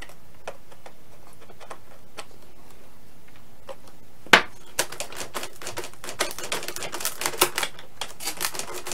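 Small hand-tool clicks and scrapes: an X-Acto hobby knife, run back-side first along the RC plane's rudder seam where a polycrylic coat has sealed it. Mostly faint ticks at first, then a sharp click about four seconds in, followed by a quick run of small clicks and scratches.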